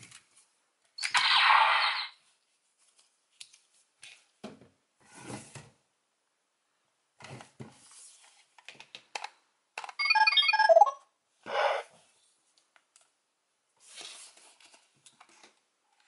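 Plastic toy parts being handled: scattered clicks and light knocks as a Morph-X Key is pulled from a Zord figure and a Beast-X Morpher toy is picked up. There is a short electronic sound effect about a second in, and a brief electronic chime with several tones from the toy's speaker about ten seconds in.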